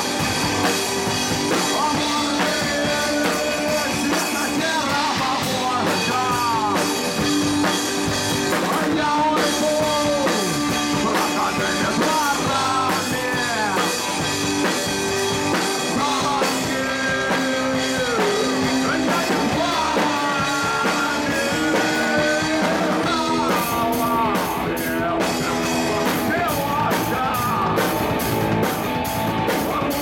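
Live rock band playing, with a man singing over electric guitar, bass and drum kit. About two-thirds of the way through, a steady run of high percussion strokes comes in.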